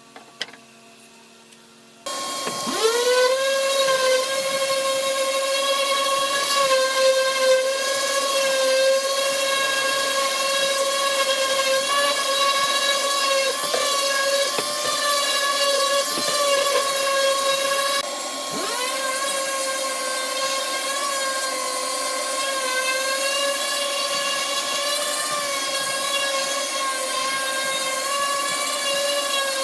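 A corded power tool's electric motor starts about two seconds in and runs at a steady high whine, its pitch dipping briefly a few times as it takes a cut in wood.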